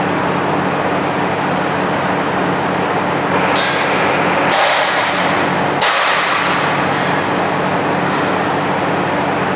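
Automatic punching machine for steel plate running, with a steady low machine hum. There are two sudden louder hissing stretches, about three and a half and six seconds in.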